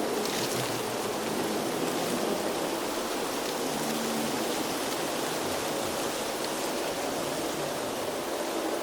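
Steady, even rushing noise of a windy outdoor ambience.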